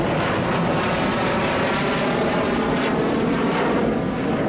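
Jet aircraft engine noise, loud and steady, a dense rush with whining tones running through it.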